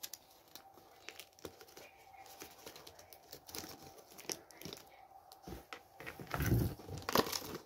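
Crinkling and rustling of a plastic gift-ribbon bow as it is handled and pressed onto a cardboard box, with small scattered clicks. The handling gets louder about six seconds in.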